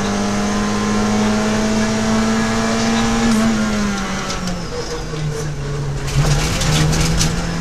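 Peugeot 106 XSi rally car's engine heard from inside the cabin, pulling with its pitch climbing slowly for about three seconds, then the revs dropping off and holding a lower, steadier note. Scattered short clicks and knocks come in over the last second or two.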